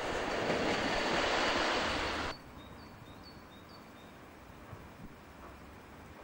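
Electric locomotive running past, a steady loud rushing of train noise that cuts off abruptly about two seconds in. After that, quiet outdoor ambience with a few faint bird chirps.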